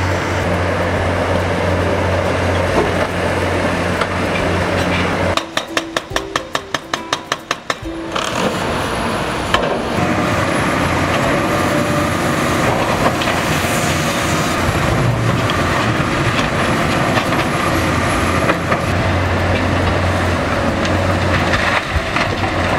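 Heavy machinery at work: a diesel engine running with a steady low hum. About five seconds in comes a couple of seconds of quick, regular clicking, and after that a harsher, noisier rumble with a faint high whine runs on.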